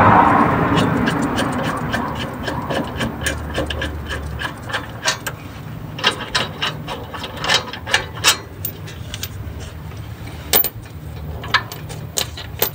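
Hand ratchet on an extension working the front brake caliper bolts loose. A dense run of clicking at first thins into scattered sharp clicks and metallic clinks.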